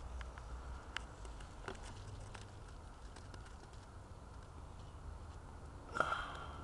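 Faint rustling and clicking of garden leaves and stems brushing against a handheld camera held in close among the plants, over a low rumble of handling. A louder short rustle comes about six seconds in.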